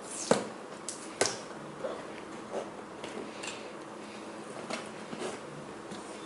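Items being handled and set down while a laptop box is unpacked: two sharp knocks about a third of a second and just over a second in, then scattered softer clicks and rustles.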